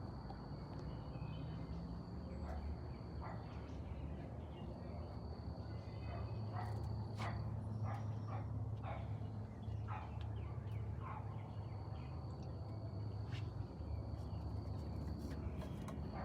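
Birds in an aviary: scattered short calls and clicks over a steady low rumble, with a thin high whine that breaks off and returns several times.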